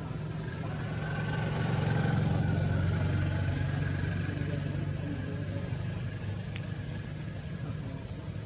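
A motor vehicle's engine runs unseen, swelling to its loudest about two seconds in and then slowly fading, as if it passes by. Short high chirps come twice, early and about five seconds in.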